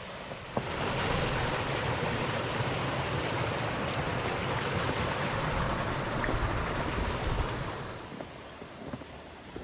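A gust of wind blowing over the microphone in a snowstorm: a steady rushing noise that picks up about half a second in, holds, and dies away near the end.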